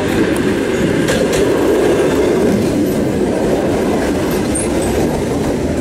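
ED9E electric multiple unit pulling into the station platform, its cars rolling past with a steady rumble of wheels on rail and a few clicks about a second in.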